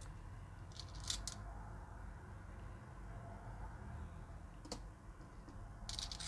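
Nordic-gold 50-cent euro coins clinking against each other in a cupped palm as fingers sort through the pile: a few light metallic clicks about a second in, a single one a little before the end, and a quick cluster near the end.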